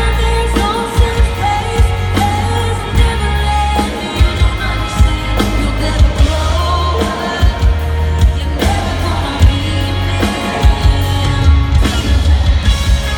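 Pop-country band music with a steady drum beat, bass and a singing voice.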